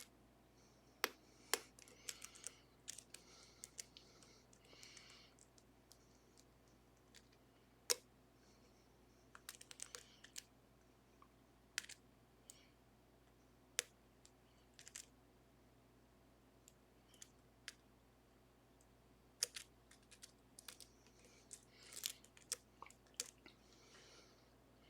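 Lock pick and tension wrench working the pins of an Assa Ruko 500 pin-tumbler lock with gin spool pins: irregular small sharp clicks and faint scraping as pins are lifted and set.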